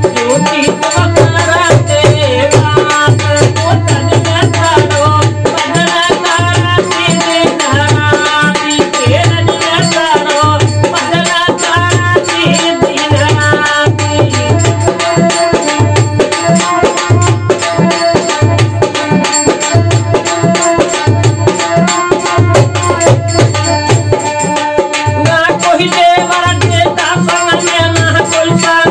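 Rajasthani devotional folk song (bhajan): a male voice singing over harmonium, with a dholak beating a steady rhythm and rattle-like hand percussion.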